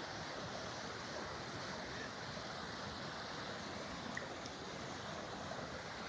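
River rapids rushing over and between boulders: a steady, even rush of whitewater.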